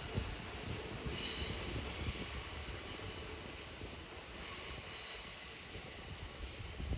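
Kintetsu electric multiple-unit train (1252 series with an 8A-series set) running past with a low rumble of wheels on rail. From about a second in, a steady high-pitched wheel squeal joins it.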